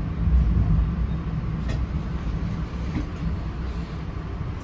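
Low rumble of an NJ Transit Comet commuter coach rolling on the rails, heard from inside the car and fading as the train slows into a station. There is one sharp click about a second and a half in.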